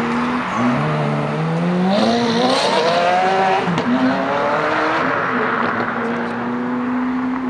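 Ferrari F430's V8 pulling away under hard acceleration: the engine note climbs steadily in pitch as it revs out, breaks at a gear change about four seconds in, then settles to a steadier note.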